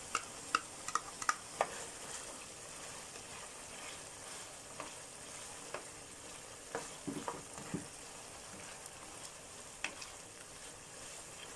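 Ground beef and tomato sauce sizzling faintly in a frying pan while a spatula stirs them together, with scattered scrapes and taps of the spatula against the pan, several in the first couple of seconds and again about halfway through.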